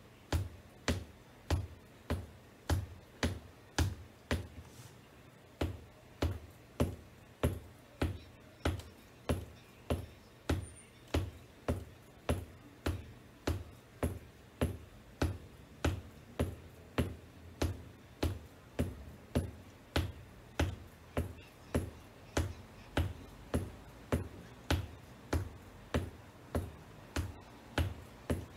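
Black open-toe wedge ankle boots tapping on a hardwood floor in a steady beat of about two taps a second.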